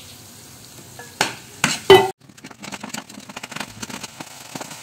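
Ground shallot, garlic and candlenut spice paste sizzling in oil in a frying pan while a spatula stirs it. A few loud knocks come just before two seconds in, then a steady fine crackle as the paste fries with a little water added.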